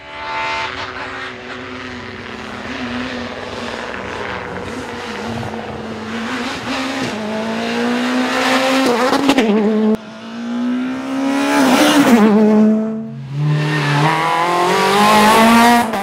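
Rally cars' engines at hard throttle, several passes one after another, the engine note climbing as each car accelerates. The sound cuts off abruptly between passes.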